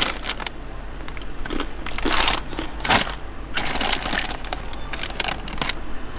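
Snack bag of tofu crackers rustling and crinkling in irregular bursts as it is handled and crackers are taken out, over the steady hum of an electric fan.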